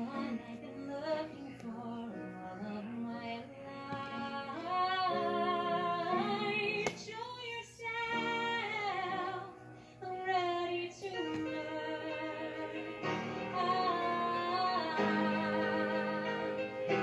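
Music: a song with a female voice singing over instruments, her held notes wavering.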